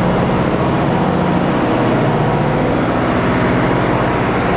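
Diesel generators in a power plant hall running steadily. The sound is a loud, constant machine drone with a low hum.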